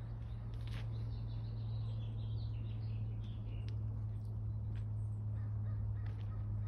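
A bird calling, a run of short high notes stepping down in pitch, from about a second in until nearly four seconds in, over a steady low hum.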